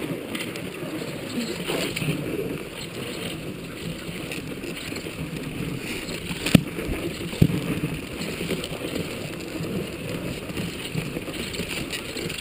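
Dog sled gliding along a packed snow trail: a steady scraping hiss of the runners over the snow. About halfway through there are two sharp knocks, a second apart, from the sled jolting.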